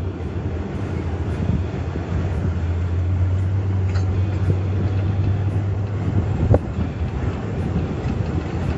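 Steady low engine and road rumble heard from inside a Jeep while driving, with one short knock about six and a half seconds in.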